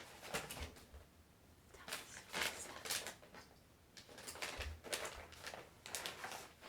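Handling noise: a few short rustles and light clicks, spaced a second or more apart.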